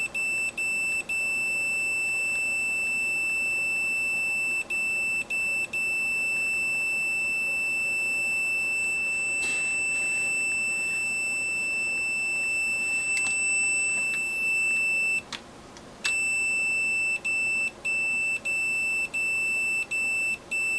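Fluke 179 multimeter's continuity beeper sounding a steady high-pitched tone through a rotary wafer-switch contact. It cuts out briefly a few times, drops for about a second, then stutters on and off about twice a second as the switch is moved. The breaks show an intermittent contact on the switch wafer that opens with movement.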